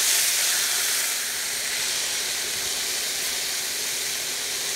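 Chicken pieces browning with garlic in hot oil in a stainless steel skillet, sizzling with a steady hiss. A little louder in the first second while they are stirred with a spatula.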